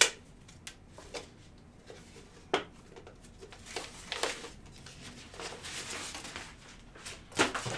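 Cardboard box and paper packaging being handled and opened: a few light knocks and scrapes, a stretch of rustling through the middle, and a sharper knock near the end.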